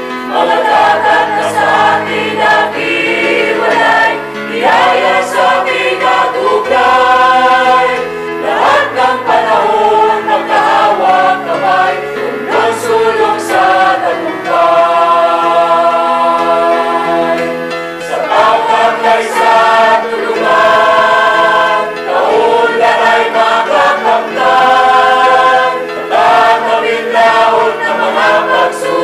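A Tagalog song sung by a choir of voices over musical accompaniment, in phrases with held notes.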